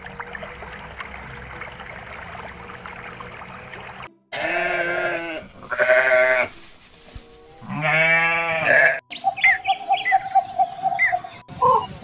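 Sheep bleating: three long, wavering bleats in the middle, the loudest sound here, after a steady rushing noise in the first four seconds. From about nine seconds, short chirping bird calls over a steady tone.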